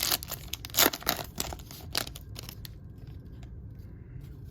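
A trading-card pack wrapper crinkling and tearing open in a rapid run of crackles that stops about two and a half seconds in.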